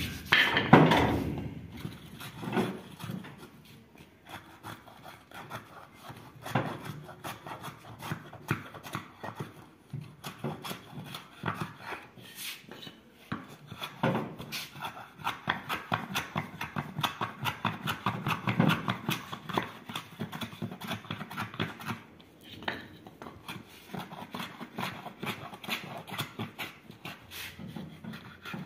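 Hand plane shaving a wooden bushing block on a concrete floor, in repeated short scraping strokes of uneven loudness, with a loud knock about a second in.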